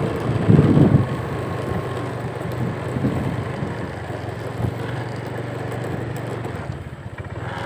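A small engine running steadily, with wind on the microphone. There is a louder rush of noise about half a second in.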